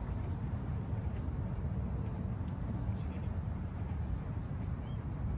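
Steady low outdoor rumble with a few faint, sharp clicks.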